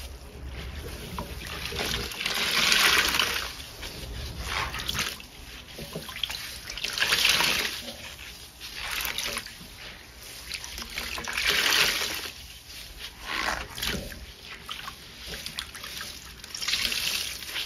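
Large soaked sponges squeezed by hand in a stainless steel basin of sudsy water: wet squishing and water trickling and splashing back into the basin. It swells loudest about every four to five seconds with each squeeze.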